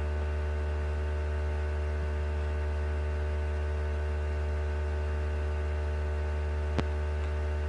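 Steady electrical hum with a buzz of many fixed tones, as from mains hum picked up by the recording chain, and a single sharp click about seven seconds in.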